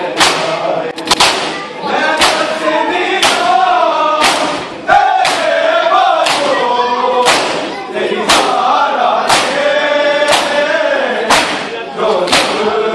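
A crowd of Shia mourners beating their chests in unison in matam, a loud slap about once a second, while a group of men chant a nauha over the beat.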